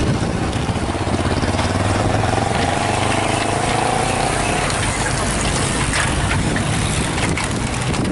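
Motorcycle engine running as it passes close by, then a bunch of road-racing bicycles rolling past, with scattered clicks near the end.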